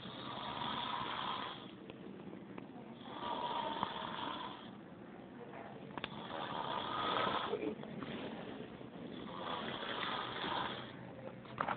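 Snoring: four long, noisy snores, one about every three seconds, with quieter breathing between them.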